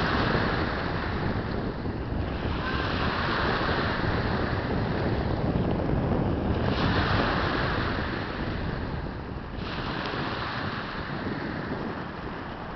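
Small sea waves breaking and washing up a pebble beach, the surf swelling every three seconds or so, with wind buffeting the microphone.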